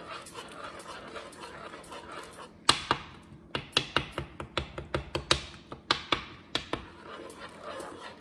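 Metal spoon stirring raspberries and sugar in a small saucepan, clinking and scraping against the pan. Soft scraping at first, then a quick run of sharp clicks, the first and loudest a little under three seconds in, lasting about four seconds.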